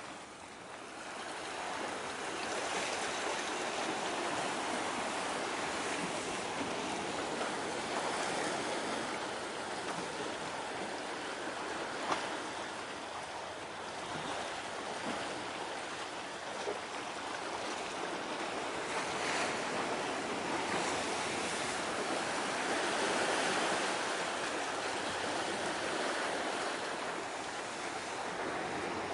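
Sea waves washing in, a steady rushing that swells and eases every few seconds.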